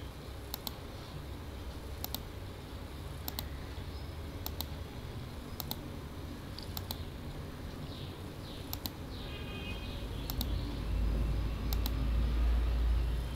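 Computer mouse clicking at a steady pace, about once every second and a quarter, each click a quick double tick of press and release. A low rumble builds in the last few seconds and becomes the loudest sound.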